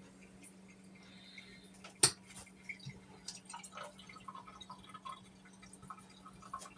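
Liquid dripping in small, irregular drops after a single sharp click about two seconds in, over a low steady hum.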